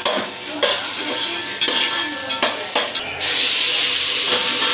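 Cashews frying in oil in an aluminium pot, a steel ladle scraping and clicking against the pot as they are stirred. About three seconds in, a loud, steady sizzle starts as something moist is added to the hot oil.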